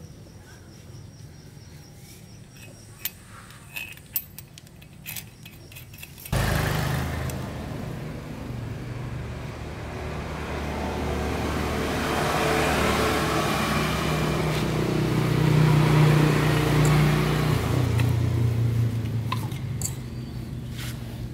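A few faint clicks of tools being handled, then a motor-driven machine starts suddenly about six seconds in. It runs loudly for about thirteen seconds, building up, changing pitch near the end, then stops and the clicks return.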